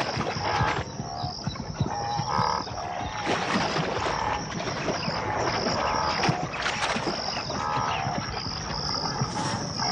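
A wildebeest herd running through shallow water, with repeated splashing and hoof noise. Short animal calls come now and then, over a steady chirping of insects.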